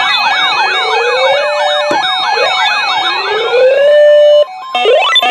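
Electronic sirens: a fast yelp warbling about five times a second over slower rising wails. The yelp stops about a second and a half in, leaving several rising wail sweeps, then the sound cuts out briefly near the end before another wail rises.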